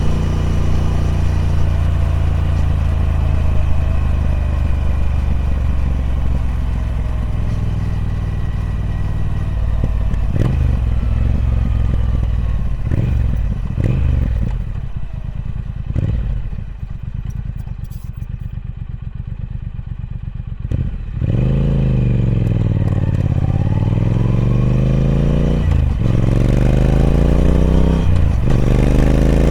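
Triumph Speed Twin 1200's 1200cc parallel-twin engine on its stock exhaust, running through changing revs. The revs fall at first, drop to a quieter low-rev stretch with a few sharp blips in the middle, then climb repeatedly, with brief dips like gear changes, and are rising again near the end.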